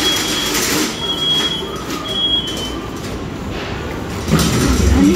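Empty wire shopping trolley rolling, its wheels and basket rattling, with a thin high squeal that comes and goes. About four seconds in, a deeper rumble swells up as the trolley rolls onto a moving walkway.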